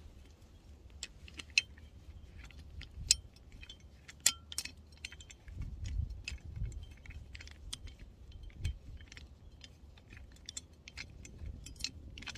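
Small clicks, clinks and rattles of a Coleman folding shovel/pick as its screw-in extension handle is threaded onto it, with a few dull handling bumps about halfway through.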